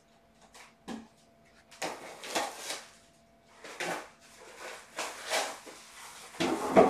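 A cat stepping and shifting about on a plush fleece blanket, the fabric rustling in a run of short uneven bursts, with a louder bump near the end.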